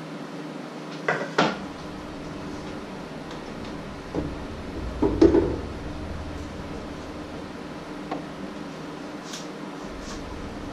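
Kitchen handling sounds: a few separate knocks and clatters of things being picked up and set down, the loudest cluster about five seconds in, over a steady low hum.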